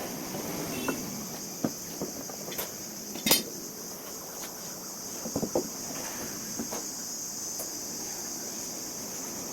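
Scattered clinks and knocks of metal parts of a homemade wood planer being handled, the loudest about three seconds in. Under them runs a steady high chirring of crickets.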